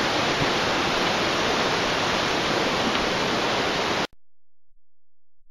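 Steady rush of a waterfall's falling water, cutting off abruptly about four seconds in.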